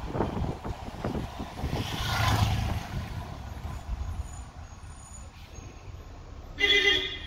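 Bus running along a highway: engine and road rumble with wind, a hiss of the air brakes about two seconds in, then quieter running as it slows. A vehicle horn blares near the end.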